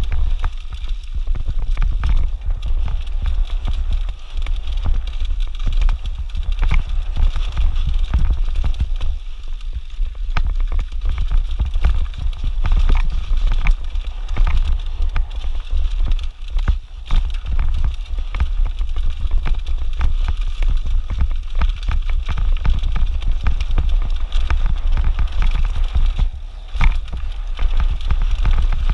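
Mountain bike riding down a dusty dirt trail, heard from a camera on the rider: steady wind rumble on the microphone, tyres crunching over dirt and loose rock, and many short rattles and knocks as the bike goes over bumps.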